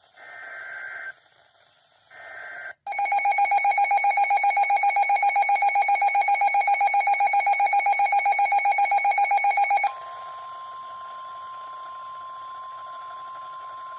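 Emergency Alert System tones for a severe thunderstorm warning. First come the last two short screeching bursts of the SAME digital header. About three seconds in, a loud rapidly pulsing alarm tone starts and lasts about seven seconds. It then drops to a quieter steady single tone near 1 kHz, which cuts off near the end.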